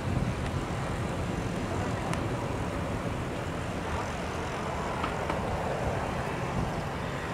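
Airbus A320-family twin-engine airliner landing: a steady jet noise with most of its energy low down, holding level through the flare and touchdown.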